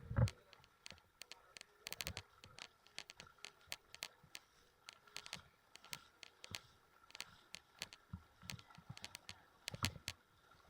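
Footsteps on loose crushed-stone gravel: many small irregular clicks and crackles of stones shifting underfoot, with a few heavier steps standing out.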